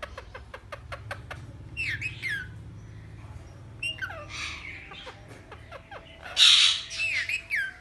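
Pet ringneck parrot squawking and calling in short bursts with gliding pitch, the loudest about two-thirds of the way in. A quick run of sharp clicks opens it.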